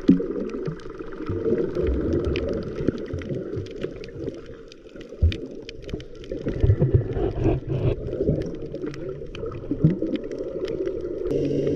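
Underwater sound from a camera held in shallow sea water over coral: muffled sloshing and gurgling with many scattered sharp clicks and crackles. Near the end a steady hum takes over.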